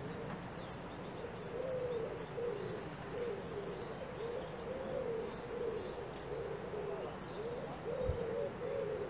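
A dove cooing in repeated low, wavering phrases, with faint chirps of small birds above it.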